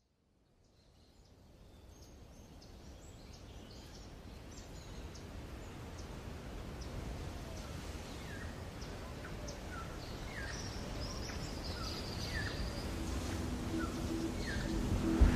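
Small birds chirping over a steady rushing background, fading in from silence and slowly growing louder, with quick high chirps at first and then short, repeated falling chirps about once a second.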